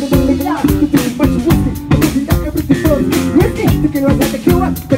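Loud live rock band playing: a Yamaha drum kit keeping a steady beat under electric guitars and bass, with a male lead vocal over them.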